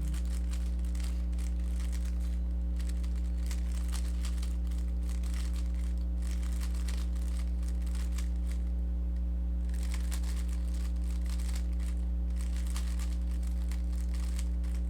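A Rubik's cube being turned quickly through algorithms: rapid faint plastic clicking in runs, with a pause of about a second past the middle. A steady low electrical hum runs under it and is the loudest sound.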